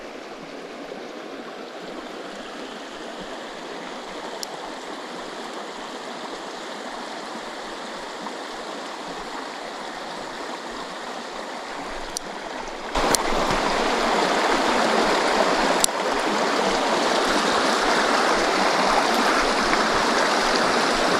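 Small stream rushing below, a steady wash of running water that gets suddenly louder about two-thirds of the way through. A few light clicks sound over it.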